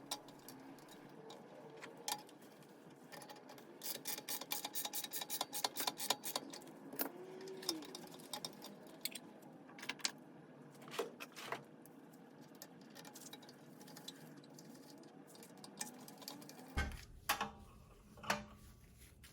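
Light metallic clicks and ticks of hand tools and small parts as an espresso machine is reassembled, with a quick run of ticks about five a second early on and a few single clicks later.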